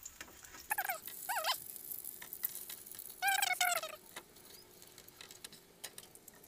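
A dog whining in a few short, high, wavering whimpers, the longest about three seconds in.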